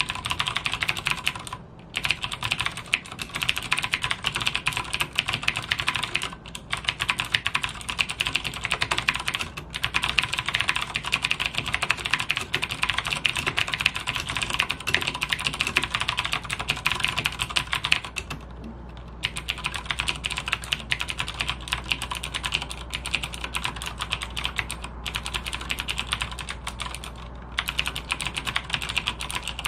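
Logitech G610 mechanical keyboard with clicky Cherry MX Blue switches being typed on rapidly. The typing stops for about a second a little past halfway, then goes on at a normal pace.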